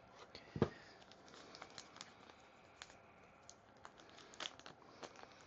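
Light clicks, taps and rustles of packaging and small plastic parts being handled during an unboxing, with one louder knock about half a second in.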